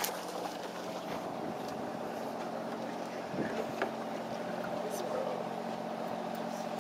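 Steady drone of a sportfishing boat's engine: a low hum with a higher steady tone over it, and a sharp click about four seconds in.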